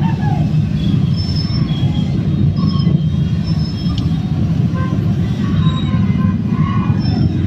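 Crowd of motorcycles running close around a car in slow traffic, heard from inside the car: a steady low engine rumble, with scattered short high-pitched toots over it.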